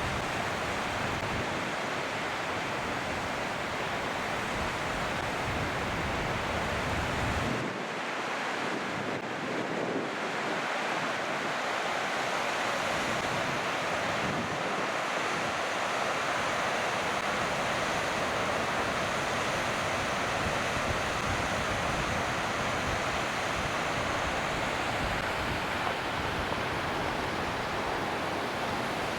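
Steady rushing of a mountain creek, an even hiss of flowing water. A low rumble under it drops away about seven seconds in.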